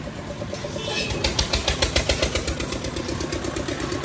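An engine running with a fast, even knocking rhythm, getting louder about a second in.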